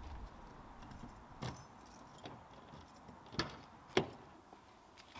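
Light handling noise: faint metallic jingling with three sharp clicks, about a second and a half, three and a half and four seconds in.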